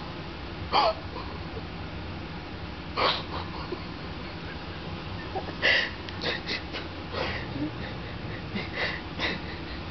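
A man snoring in his sleep: short, breathy snorts every couple of seconds, then a run of quicker, shorter ones in the second half.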